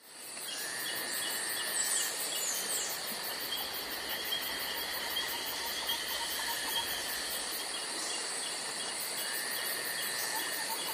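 Insects chirping: a chorus of repeating cricket-like chirps over steady shrill insect calls, fading in over the first half-second.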